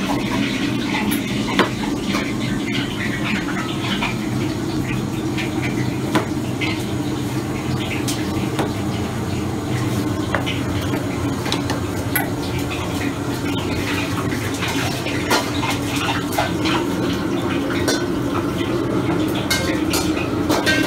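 Commercial kitchen sound: a steady machine hum under scattered clicks and taps of chef's knives on plastic cutting boards, with clatter of dishes and utensils.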